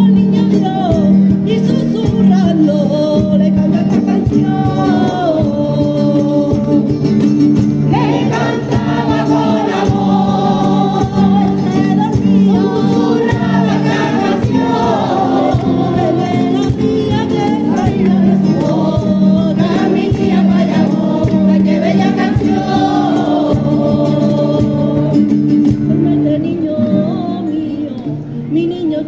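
A mixed choir singing a Christmas song together, accompanied by acoustic guitar, with hand clapping along.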